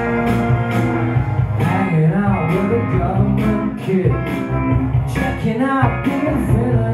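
A man singing live into a microphone while playing an electric guitar, over a steady beat. The guitar is heard first and the voice comes in about a second and a half in.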